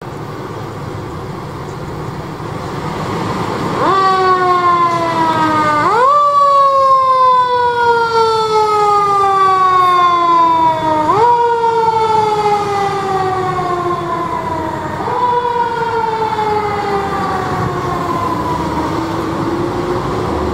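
Fire engine's siren, each cycle jumping quickly up in pitch and then falling slowly, four times, over a low engine rumble. The siren starts about four seconds in and grows fainter near the end as the truck moves away.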